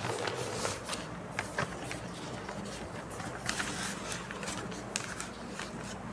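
Sheets of paper rustling and handled in the hand, with scattered light clicks, over a faint steady low hum of room tone.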